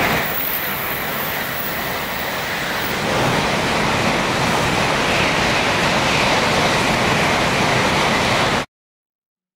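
Shinkansen bullet train passing at speed: a steady rushing noise of air and running gear, a little louder from about three seconds in. It cuts off suddenly near the end.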